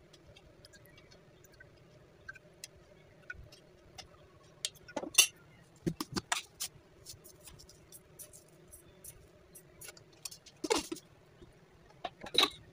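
Kitchen sounds around a frying pan of liquid on the stove: a faint steady hum with scattered light clicks, and a few louder short clinks and knocks about five and six seconds in and again near eleven and twelve seconds.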